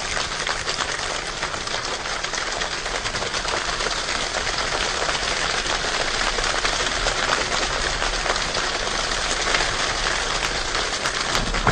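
A large choir imitating rain with body percussion: many people snapping fingers and patting their hands together in a dense, even patter of tiny clicks that swells slowly, like a rain shower building.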